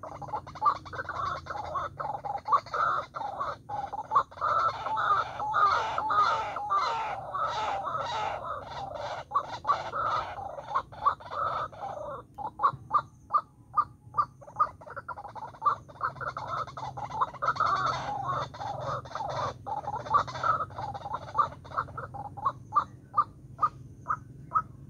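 White-breasted waterhen calling: a dense, rapid run of repeated croaking calls that starts suddenly, giving way after about twelve seconds to a steady series of short calls about two a second.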